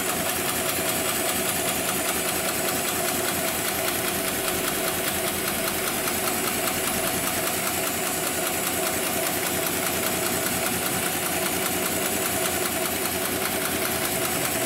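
Hightex 7273PLK heavy-duty computerized pattern sewing machine stitching a box-X pattern through four layers of heavy webbing, with a steady, rapid, even needle rhythm.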